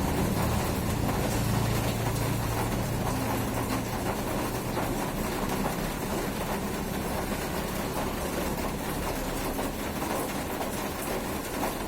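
Steady rain noise, with a low droning hum over it for the first few seconds that fades out.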